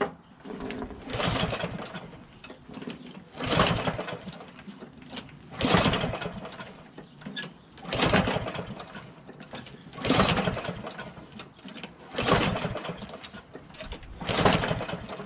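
Lawn-Boy push mower's recoil starter pulled seven times, about once every two seconds, each pull a brief rasping crank of the engine that dies away. The engine turns over but does not catch.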